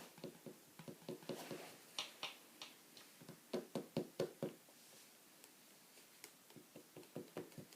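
Irregular small metallic clicks and taps of a cam lock being taken apart, as the core is worked out of the lock body. A louder run of clicks comes about three and a half to four and a half seconds in.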